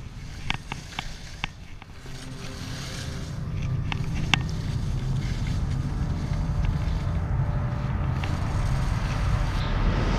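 Wind buffeting a GoPro's microphone and skis running over snow during a downhill run: a low rumble that grows louder after about two seconds. A few sharp clicks come in the first half.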